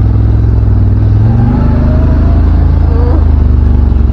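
CFMoto ZForce 950 Trail side-by-side's V-twin engine running as it drives, heard from the cockpit, its note shifting slightly lower a little over a second in.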